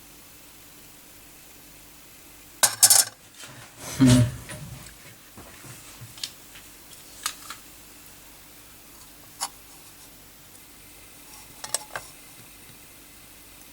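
Handling noise of small hard objects: a quick cluster of sharp clicks, then a dull thump about a second later, followed by a few scattered light ticks over a faint steady hum.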